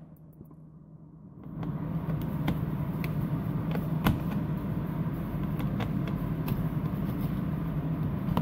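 A screwdriver turning out the plastic belly-pan screws under a car, giving scattered sharp clicks over a steady low hum that comes in after about a second and a half.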